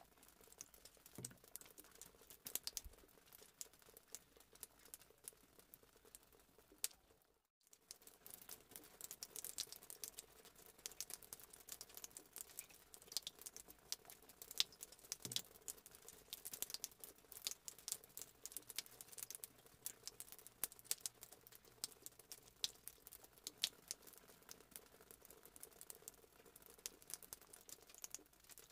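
Faint, irregular clicking and crinkling of a lid-sealed plastic drink cup being handled in the hand, broken by a brief moment of total silence about seven seconds in.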